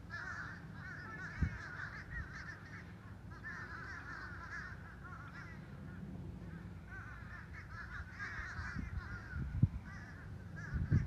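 A flock of birds calling in bursts of quick, chattering, crow-like calls, over a low wind rumble on the microphone; a few thumps come near the end.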